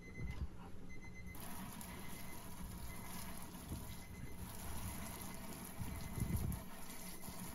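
Rinse water spraying steadily from a hand-held nozzle onto freshly anodized aluminium parts on a rack, splashing down into a plastic bucket. The spray starts about a second and a half in and runs on evenly.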